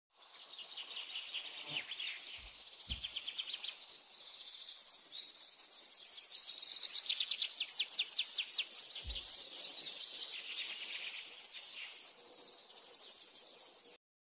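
High-pitched wildlife chirps and trills. They are soft at first, grow into a fast trill, then give a run of about seven separate chirps at about three a second, and stop near the end, leaving a faint hiss.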